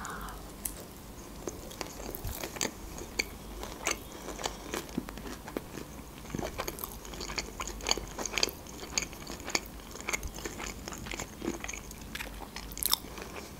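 A person chewing sushi rolls close to the microphone: many small, irregular wet clicks and smacks of the mouth.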